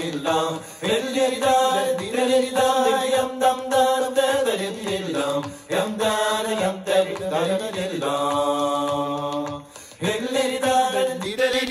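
Music: a song with chant-like singing in long, held notes over a light, steady beat.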